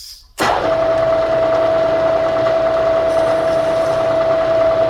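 Milling machine spindle switched on, starting suddenly about half a second in and then running steadily with a high, even whine, ready to drill a hole in a metal bracket.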